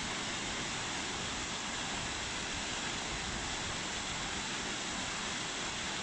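Waterfall rushing steadily down a rocky cascade, an even hiss of falling water.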